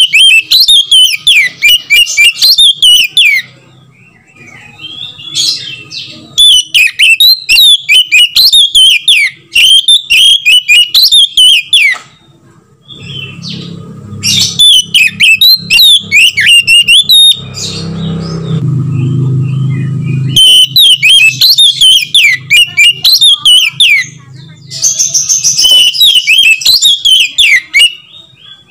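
Oriental magpie-robin singing loudly: phrases of rapid, varied whistles and chattering notes, each a few seconds long, broken by short pauses.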